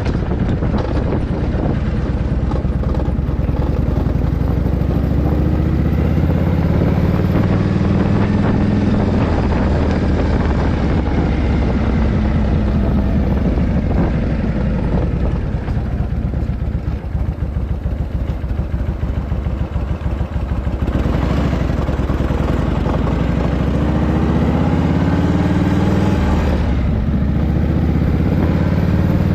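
Harley-Davidson Shovelhead V-twin engine running on the road, freshly rebuilt top end, pulling up through the revs with its pitch rising, easing off and dipping for a few seconds in the middle, then pulling up again near the end.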